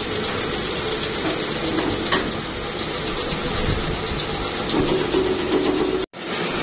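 Small vertical plastic injection-moulding machine running with a steady mechanical drone, with a sharp metallic click about two seconds in as the steel mould is handled. The sound cuts out for an instant just after six seconds.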